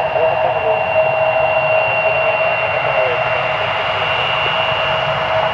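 J-AIR Embraer 170's twin General Electric CF34 turbofan engines running steadily as the jet moves along the runway. They make a steady whine on two pitches, one middle and one high, over a broad even rush.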